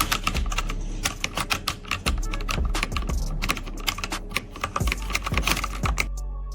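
Fast, continuous typing on a compact mechanical gaming keyboard: a dense run of key clicks over a steady low hum.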